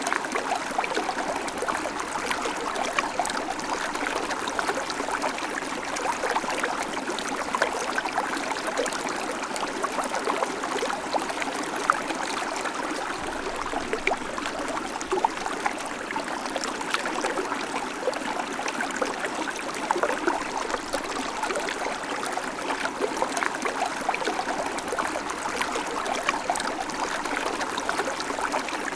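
Babbling creek: shallow water running and splashing over stones, a steady rush flecked with small splashes and gurgles.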